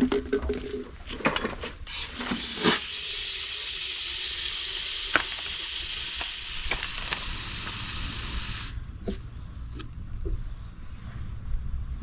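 A steady hiss, like a spray or an air jet, lasting about six seconds and cutting off suddenly, with sharp clicks and knocks of parts or tools being handled before and after it.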